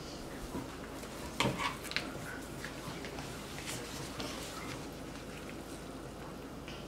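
Pancake batter faintly sizzling on an electric griddle as it is piped from plastic squeeze bottles, with a couple of light knocks about a second and a half in.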